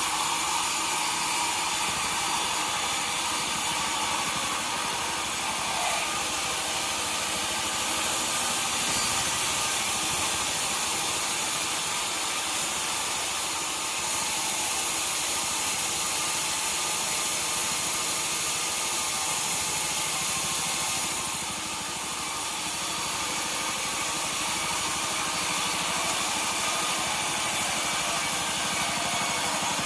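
Sawmill running, its saw cutting through a log: a steady machine noise that eases briefly about two-thirds of the way through.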